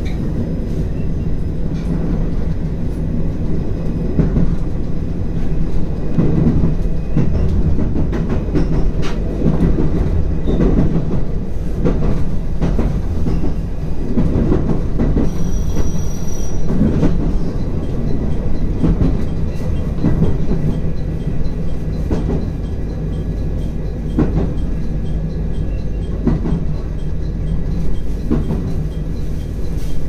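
Train running on the rails, heard from inside the front car as it nears its terminal station: a steady rumble with irregular clacks of wheels over rail joints and points, and a brief high squeal about halfway through.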